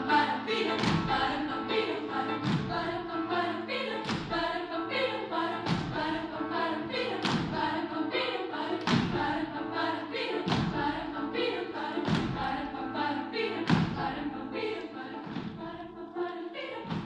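Children's choir singing in parts, with a regular thudding beat about every one and a half seconds.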